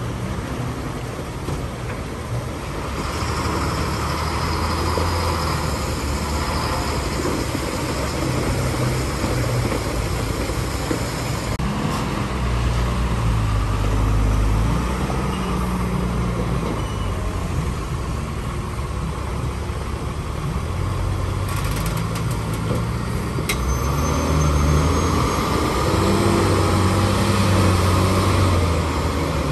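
Diesel engines of heavy multi-axle tipper trucks running under load as the trucks crawl through deep mud. The low engine note rises and falls several times as the drivers work the throttle.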